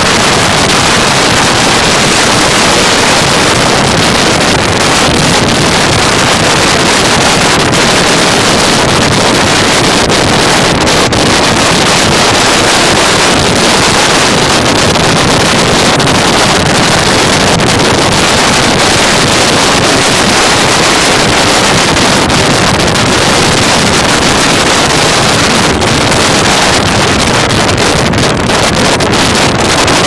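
Motorcycle ridden at highway speed: loud, steady wind rush buffeting the microphone, with the engine and road noise blended underneath.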